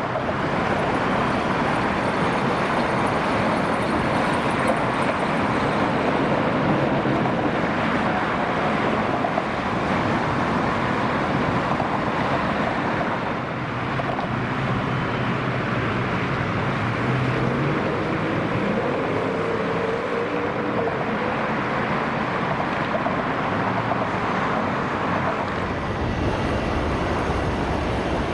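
Jet engines of wide-body freighters on landing, a steady loud rush with a low hum. First a four-engined Boeing 747-400F, then after a brief dip a twin-engined Boeing 777-200F; near the end the sound deepens as a Boeing 747-400 moves along the runway.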